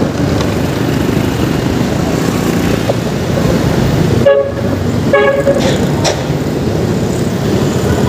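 Motor scooter riding through dense city traffic: steady engine and road rumble, with two short vehicle-horn toots about four and five seconds in.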